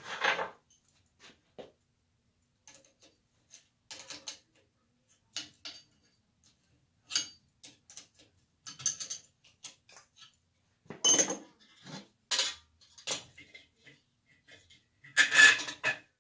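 Metal chandelier parts clinking and rattling as they are handled and fitted together during assembly: scattered short clicks and scrapes, with louder rattling bursts about eleven seconds in and again near the end.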